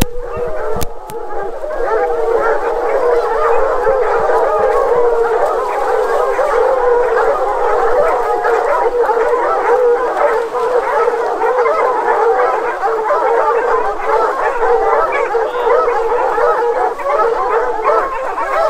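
A pack of bear hounds baying at a black bear, many voices overlapping without a break.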